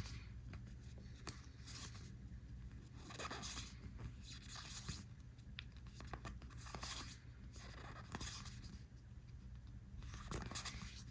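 Trading cards and booster-pack wrappers being handled: short, faint rustling and sliding sounds every second or two.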